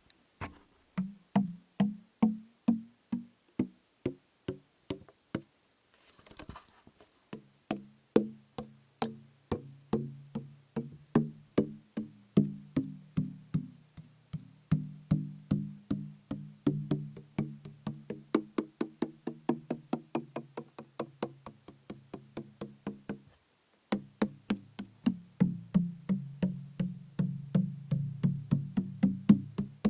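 Tapping on a plastic bottle filled with liquid, a steady run of hollow knocks each with a low ringing tone. The knocks come about two a second at first and grow quicker, three to four a second, later on. About six seconds in, the tapping pauses for a short rustle.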